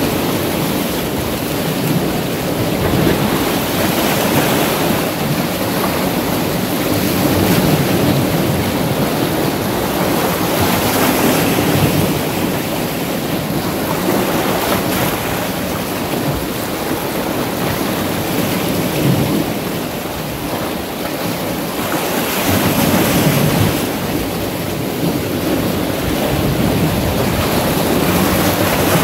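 Sea waves breaking and washing around large shoreline boulders: a continuous rush of surf that swells and eases every few seconds.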